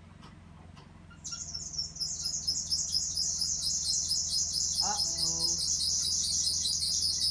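A 2004 Toyota Sienna's 3.3-litre V6 idling just after a start, with a loud, high-pitched screech starting about a second in. The screech pulses rapidly and evenly. It comes from the engine's accessory drive, which the owner takes for a belt that needs replacing or lubricating; tightening the belts has not cured it.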